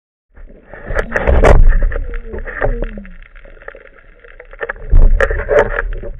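Water rushing and bubbling against an underwater camera housing as a freediver moves near the surface, with sharp clicks and knocks in two loud stretches, about a second in and again about five seconds in.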